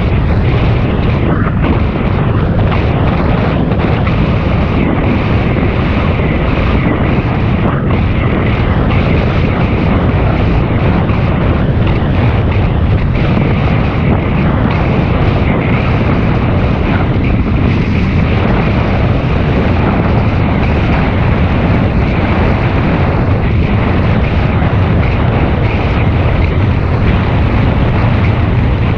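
Wind rushing over the microphone of a camera riding along on a moving bicycle: a steady, loud, low rumble with no letup.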